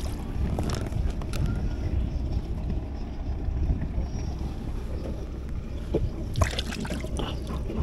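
Wind rumbling on the microphone over a boat on the water, with a few light knocks and clicks from fishing bait and line being handled, mostly about a second in and again near the end.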